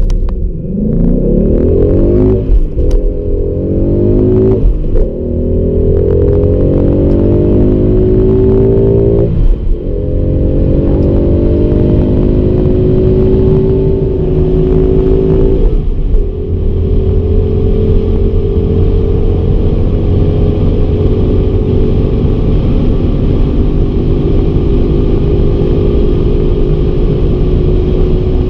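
2016 Ford Mustang GT's 5.0-litre V8, heard from inside the cabin, accelerating hard through the gears of its manual gearbox: the engine note climbs in pitch and drops at each upshift, about 2, 5, 9 and 16 seconds in. After the last shift it pulls on in top gear at high speed, its pitch rising only slowly, over steady road and wind rumble.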